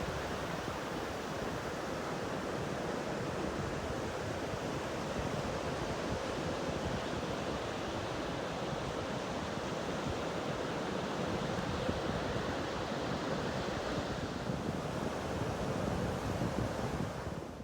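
Ocean surf washing steadily on the beach, with wind on the microphone; it cuts off suddenly at the very end.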